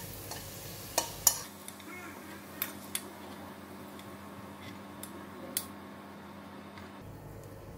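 A spoon scraping and clinking against a nonstick wok and a small glass bowl as fried garlic is scooped out of the oil, with a few light, sharp clinks spread a second or so apart.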